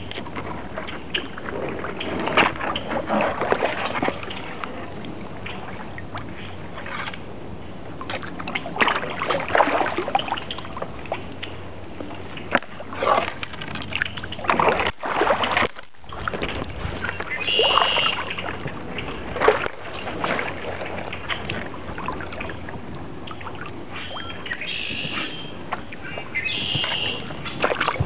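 Kayak paddle dipping into the water, splashing and trickling in irregular strokes every second or two.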